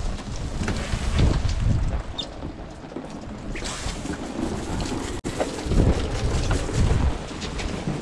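Wind gusting on the microphone, strongest in the first couple of seconds and again from about five and a half to seven seconds in, over the hiss of a hose spraying rinse water onto a boat's deck.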